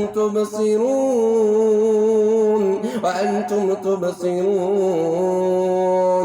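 A man's voice chanting Quranic recitation in a melodic style, holding long drawn-out notes with small ornamental turns, with a brief break about three seconds in.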